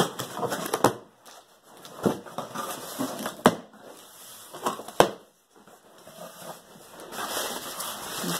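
A cardboard shipping box being opened and the bubble-wrap packing inside handled: rustling and scraping of cardboard, with four sharp snaps or knocks over the first five seconds. A denser crinkling of bubble wrap builds near the end.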